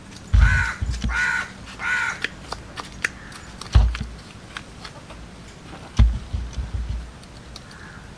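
A crow cawing three times in quick succession, over several loud low thumps and a few light clicks.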